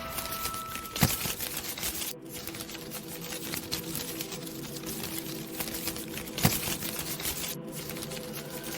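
Rapid, irregular clicking and crackling, with two louder knocks about a second in and again near six and a half seconds, over a faint steady droning tone.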